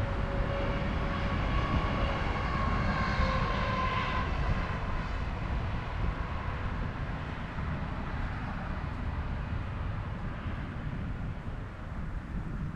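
A four-engine turboprop Airbus A400M military transport passing, its propeller engine tones strongest in the first few seconds and then fading away. A steady low rumble runs underneath.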